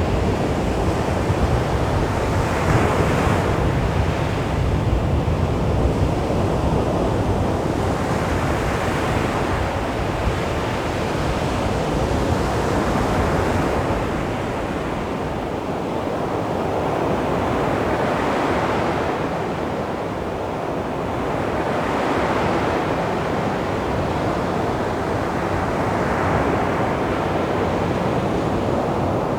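Sea waves washing onto a beach: a continuous surf hiss that swells and eases every few seconds as each wave breaks and draws back.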